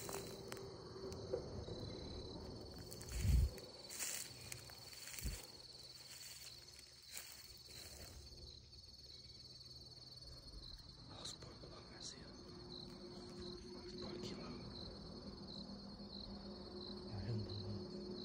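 Steady, high-pitched insect chirping with a faint regular pulse. Two short low thumps come about three and five seconds in, the first the loudest sound.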